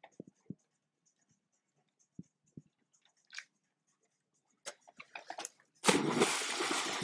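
A Weimaraner's paws tapping quickly on a wooden dock as it runs, then a loud splash about six seconds in as it leaps into the lake, the water churning for about a second.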